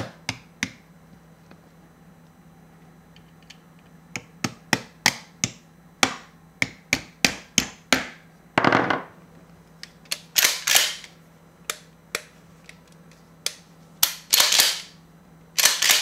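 Remington 870 pump shotgun being reassembled: a run of sharp metal clicks, with a few longer metallic slides and scrapes, as the trigger-group pins are pressed into the receiver and the gun is handled.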